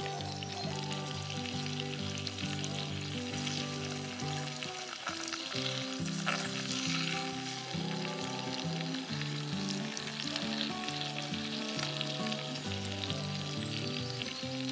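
Batter-coated chilli chicken pieces deep-frying in hot oil in a miniature clay pot, a steady sizzle, with a small slotted metal spoon moving through the oil. Background music with a pattern of steady low notes plays under it.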